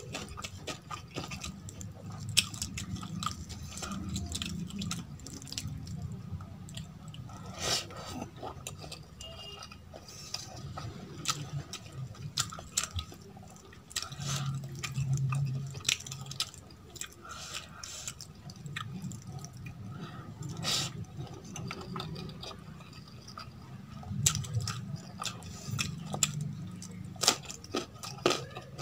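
Close-miked eating sounds: fingers mixing rice and rajma curry on a steel plate, with many scattered sharp clicks of fingers against the plate, and chewing.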